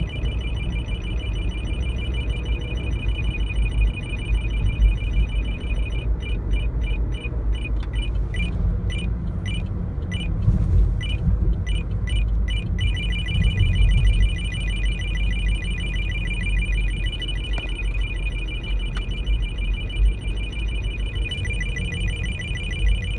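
Radar detector alert beeping at an ISKRA-1D police radar gun: a high two-tone beep repeating very rapidly, slowing to separate beeps about two a second for several seconds in the middle, then going back to rapid beeping. A steady low car rumble sits underneath.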